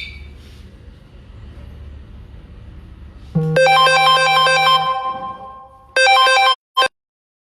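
An electronic melody of clean, steady notes starts loudly a little over three seconds in, over a low background hum. A second phrase follows about six seconds in, and then the sound cuts off abruptly.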